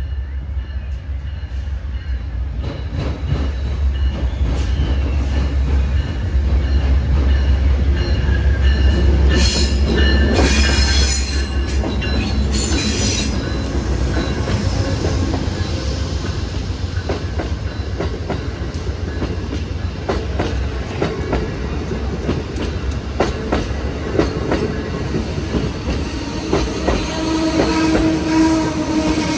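Amtrak passenger train passing close by. A diesel locomotive's engine rumbles through the first dozen seconds. Wheels squeal for a few seconds about ten seconds in, and the wheels click over rail joints as the cars roll past.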